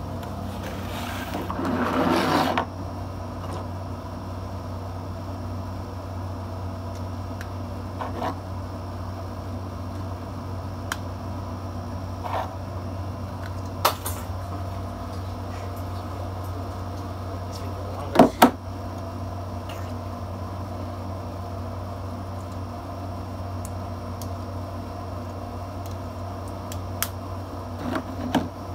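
Plastic Lego sections being handled and set down on a hard tabletop: a rustle near the start, then scattered sharp clicks and knocks, the loudest a close pair about two-thirds through, over a steady low hum.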